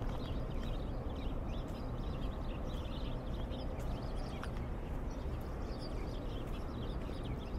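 Small birds chirping continually over a steady low hum of the town, with the walker's footsteps on wet pavement.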